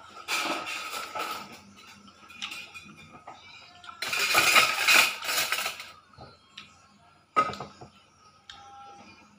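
Eating by hand from a ceramic plate: fingers mixing and scraping rice against the plate, with eating noises. It comes in irregular loud, noisy bursts, the longest about four seconds in.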